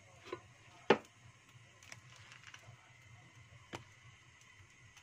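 A few sharp knocks and clicks, the loudest about a second in and another near four seconds, over a low steady hum.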